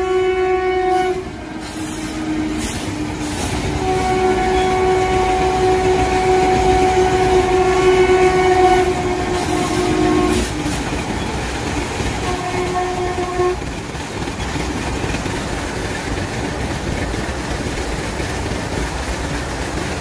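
Passing train rumbling steadily along the track while its horn sounds a held chord several times: a blast ending about a second in, a long one of about six seconds, then a short one.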